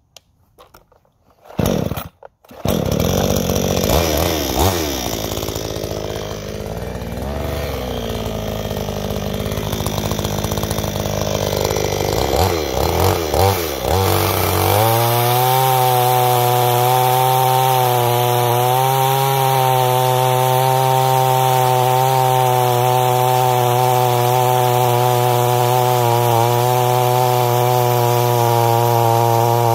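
A new 62cc two-stroke chainsaw, still on its break-in fuel mix, is pull-started and catches about two and a half seconds in. It runs with uneven, changing revs, then about halfway through holds a steady full-throttle note as its 22-inch bar cuts through a 16-inch log.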